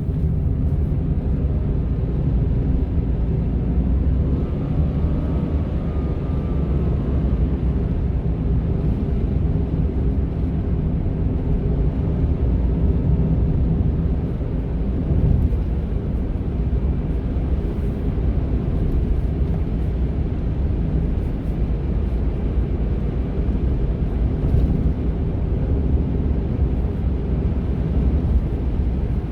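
Honda N-ONE kei car on the move: a steady low rumble of road and engine noise with a faint motor-like hum running through it, and a faint wavering whine about four to seven seconds in. This is the strange motor noise that the owner, with the car at 300,000 km, suspects is a fault but cannot identify.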